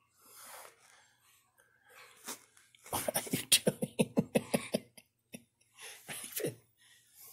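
An Alaskan Malamute breathing hard in quick, rough puffs while mouthing a person's hand in play: a fast run of about ten puffs a second lasting some two seconds from about three seconds in, and a shorter burst near the end.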